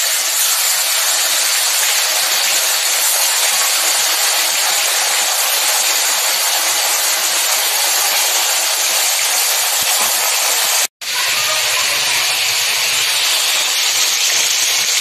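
Loitta (Bombay duck) fish pieces frying in hot oil in an aluminium kadai: a loud, steady sizzle that cuts out for an instant about eleven seconds in.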